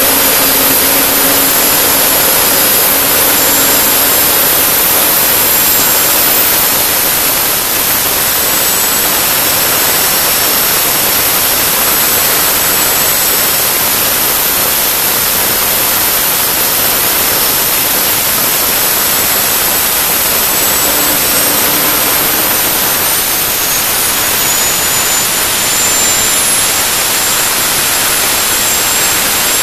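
Turbomeca Astazou 3N2 gas turbine running: a loud, steady rush of jet noise with a thin high whistle on top. The whistle rises slightly in pitch in the last third as the engine accelerates toward full speed.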